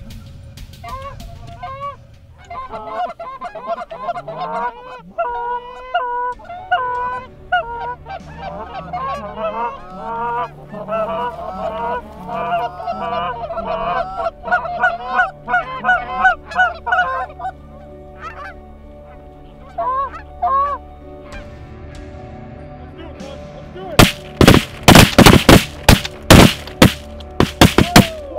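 A flock of Canada geese honking loudly as they circle and drop in, the calls thinning out after a while. Near the end comes a rapid volley of shotgun blasts from several guns.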